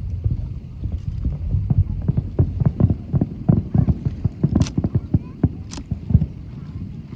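Fireworks bursting in rapid succession: a dense run of dull booms, several a second, with two sharp cracks about halfway through.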